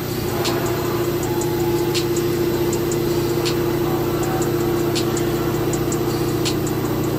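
Vertical machining center (ALLES ALVMC1160) running its spindle with a cutting tool working into the top of an aluminium cylinder: a steady machine tone with sharp high ticks about once a second.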